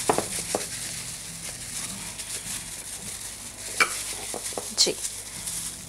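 Gloved hands working an oily marinade into a whole fish in a glass baking dish, giving a soft wet rubbing sound. Two sharp clicks come about four and five seconds in.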